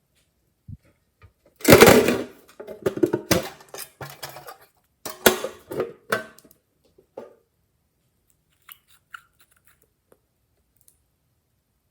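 Glossy slime being squished and worked by hand, giving wet crackling and popping clicks. The loudest squish comes about a second and a half in, more follow in bursts, and it fades to a few faint clicks near the end.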